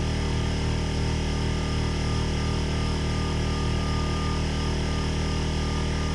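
A motor running steadily, a constant low mechanical hum with no change in pitch or level.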